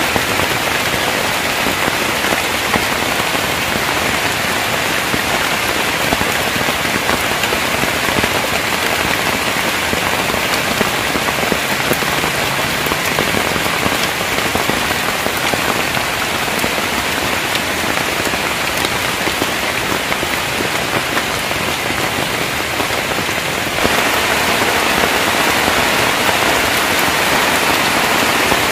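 Heavy rain falling steadily, an even hiss. Near the end it turns a little louder.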